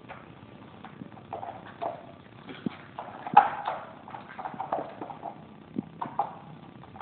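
Boxer puppy moving about: irregular light clicks and taps, with a sharper one about three and a half seconds in.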